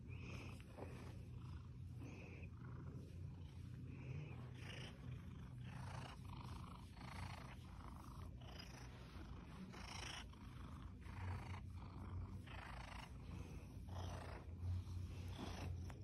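Seal point Siamese cat purring steadily while it is being stroked, a contented purr.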